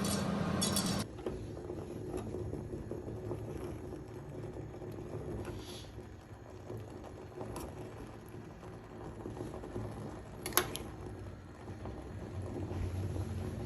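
Faint steady low hum of a kitchen with the cooking going on. A low tone stops about a second in, and there is one light click about three quarters of the way through.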